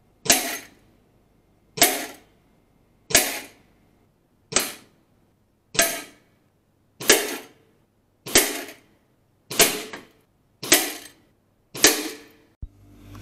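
Gamo HPA Mi PCP air rifle firing 4.5mm pellets into metal jar lids stacked in a tin can: ten sharp shots about a second and a quarter apart, each with a short decaying tail.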